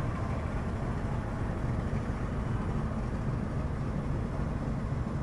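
Double-decker express passenger train running slowly as it pulls out of a station: a steady low rumble from the moving coach and its wheels on the track.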